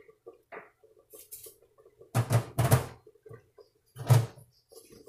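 Hard kitchen knocks and thumps while working at the stove: three in quick succession about two seconds in, then a single louder one about four seconds in.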